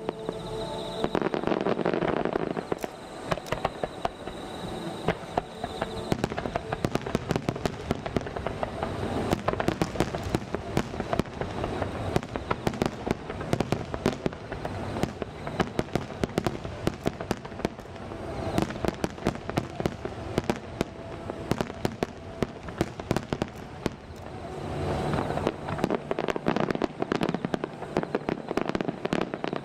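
Wide starmine fireworks, heard from far off: a dense, continuous run of shell bursts and bangs, many each second, as volley after volley goes up and explodes.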